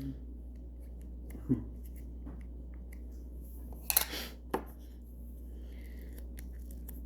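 Handling noises: a few short clicks and taps, the sharpest pair about four seconds in, over a low steady hum.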